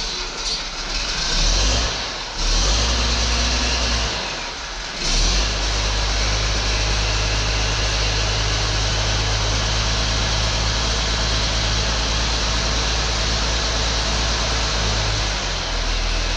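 Zetor 16045 tractor's turbocharged six-cylinder diesel firing unevenly in stutters as it starts after its fuel system was bled, catching about five seconds in and then running steadily. Its note shifts slightly near the end.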